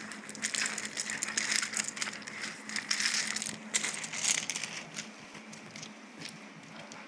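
Loose gravel crunching and crackling under dogs' paws as they scuffle about, a busy run of crunches that thins out over the last couple of seconds. A faint steady hum lies underneath.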